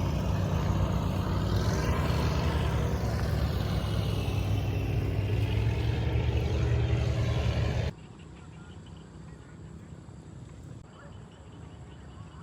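Vehicle driving: a steady engine hum with road noise, which cuts off abruptly about eight seconds in, leaving only a faint steady background hiss.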